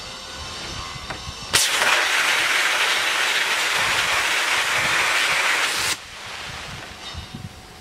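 Sandblaster gun firing compressed air and abrasive grit onto a metal moped frame: a loud, harsh hiss that starts abruptly about a second and a half in and cuts off sharply some four seconds later, with a fainter hiss before and after.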